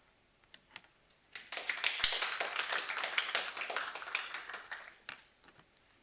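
Applause from a small, sparse group of people clapping, starting about a second in and fading out after about four seconds with a few last claps.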